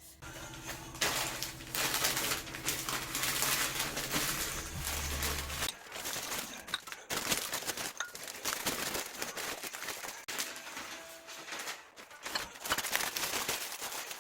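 A small motor hums steadily and cuts off suddenly about six seconds in, followed by rustling and handling noises.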